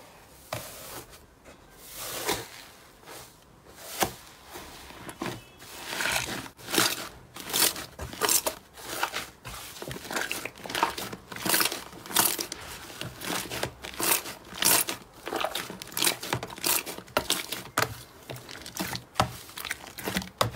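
Purple slime pressed and squeezed by hand in a plastic tub, giving an irregular run of small crackles, pops and squelches of trapped air. The sounds are faint at first and come thick and fast from about two seconds in.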